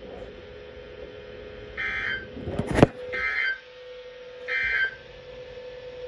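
Emergency Alert System end-of-message signal played through a speaker: three short bursts of digital data tones about a second apart, the code that tells receivers the alert is over. A steady low hum runs underneath, and there is one sharp click between the first two bursts.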